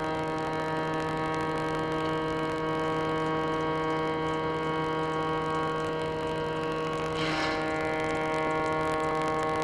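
Steady machine drone holding one fixed pitch, like an engine running at constant speed, with a brief hiss about seven seconds in.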